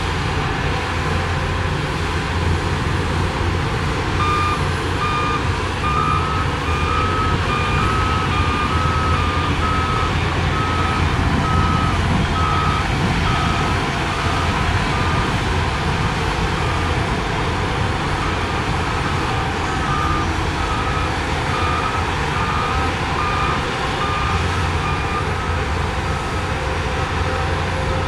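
Heavy machine's reversing alarm beeping about twice a second over the steady running of a diesel engine. The beeping starts a few seconds in, stops for a few seconds midway, then resumes.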